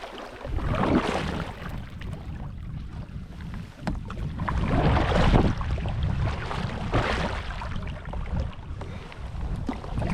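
Paddle strokes splashing in lake water, a swell of splash every couple of seconds, over a steady low rumble of wind buffeting the microphone.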